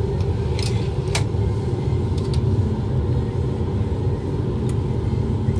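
Steady low rumble of a laboratory fume hood's exhaust airflow, with a few light clicks scattered through it.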